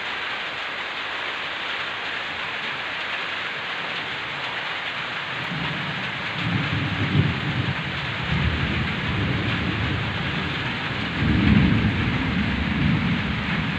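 Heavy rain falling steadily, with a low rumble of thunder building from about five seconds in. The thunder swells twice and is loudest about eleven seconds in.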